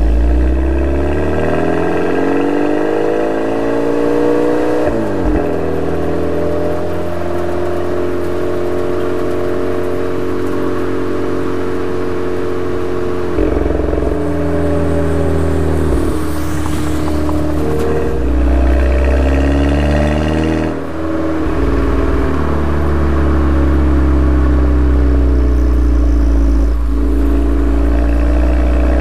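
Volkswagen Golf GTI MK6's 2.0-litre turbocharged four-cylinder running through an APR RSC turboback exhaust while driving, revs climbing and falling. About five seconds in the pitch drops sharply with a short pop as the DSG gearbox upshifts, the 'DSG fart'. Further rises and drops in revs come later.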